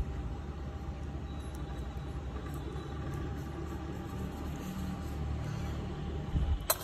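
A steady low rumble with no clear source, and a few sharp clicks near the end.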